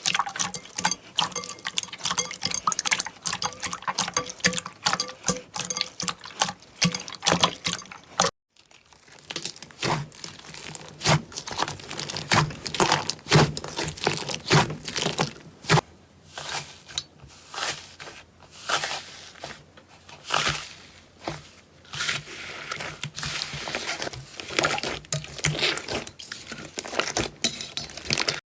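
Slime being squeezed and pressed by hand, making a dense run of wet clicks and crackles. It breaks off about eight seconds in, and another batch follows with more spaced-out pops.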